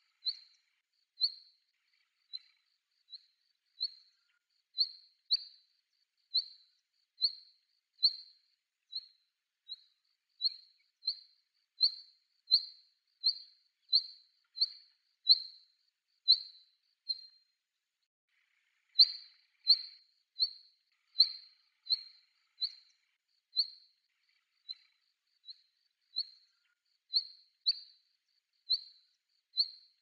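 Female black redstart calling: short, sharp, high call notes repeated a little more than once a second, with one pause of about two seconds past the middle.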